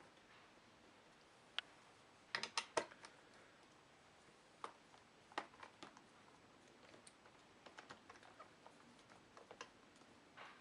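Faint, irregular clicks and taps of small hard parts handled on a desk while taking a laptop apart: screws being undone and set down. A quick run of sharper clicks comes about two seconds in, then lighter scattered ticks.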